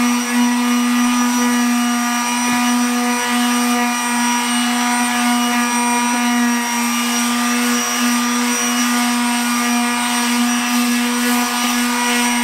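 Corded electric detail sander running at a steady, even hum, its pad sanding down the painted front body panel of an E-Z-GO golf cart to take off tiger-striped paint before repainting.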